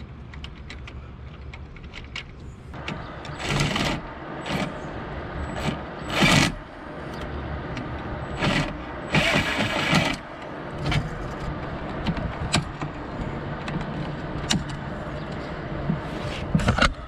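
Cordless drill-driver running in several short bursts against a solar-panel mounting bracket, the longest about a second long near ten seconds in, with small clicks and knocks of handling in between.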